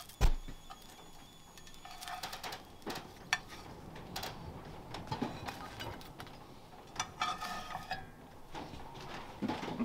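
Cooking utensils clicking and scraping against a non-stick frying pan as frankfurters are turned over, over a faint sizzle of frying. A sharp knock about a quarter-second in is the loudest sound.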